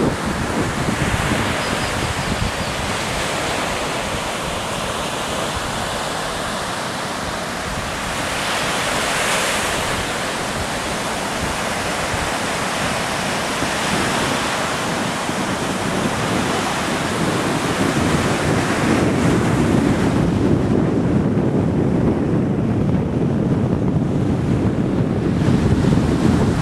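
Small surf washing and breaking on a sandy beach, a steady rushing hiss, with wind buffeting the microphone. Near the end the wash of the waves fades and the low rumble of wind on the microphone grows stronger.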